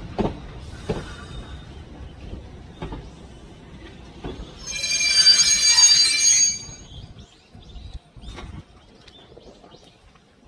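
Electric commuter train rolling past the platform, its wheels knocking over rail joints every second or two. Midway comes a loud, high-pitched wheel squeal lasting about two seconds.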